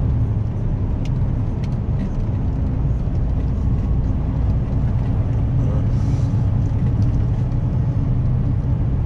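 Steady engine drone and tyre-and-road rumble heard from inside a moving motor vehicle cruising along a road.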